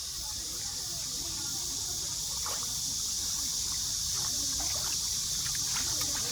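Mountain stream water running steadily over rocks, with a few faint small splashes.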